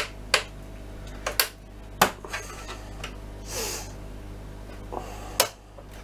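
Sharp plastic clicks and knocks as a plastic pry tool and fingers lever at the plastic retaining clips holding a board in an oscilloscope's chassis, about seven of them, with a short scraping rustle midway.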